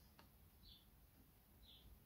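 Near silence, with a small bird chirping faintly, one short high chirp about once a second. A single faint click comes shortly after the start.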